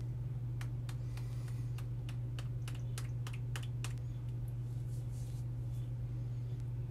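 About a dozen sharp, irregular clicks in the first four seconds as a container is worked open by hand, over a steady low hum.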